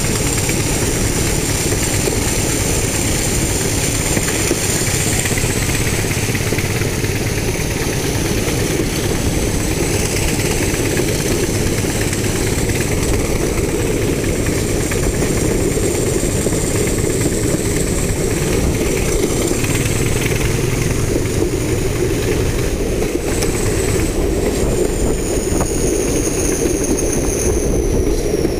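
Class 31 and Class 20 diesel locomotives, English Electric engines, working hard under power (a 'thrash'), heard from the moving train as a steady, loud engine noise. A thin high whistle runs above it and near the end splits into one rising and one falling tone.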